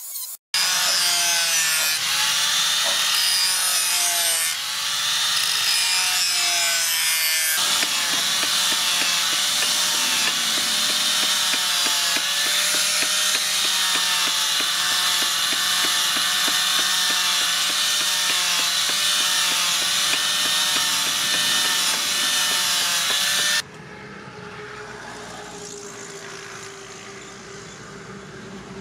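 Angle grinder grinding a steel knife blade, its motor pitch wavering as the disc is pressed against the steel, with a cut about a second in and another about seven seconds in. Near the end the grinder stops and a much quieter scraping follows: a hand file worked along the blade's edge.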